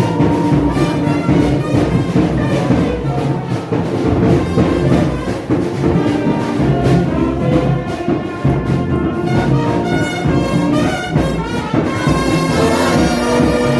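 Brass band music: trumpets and trombones playing held chords over a steady bass.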